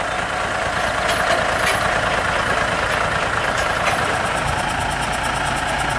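Diesel engine of a heavy-haul semi truck running steadily. A fast, even ticking joins about two-thirds of the way in.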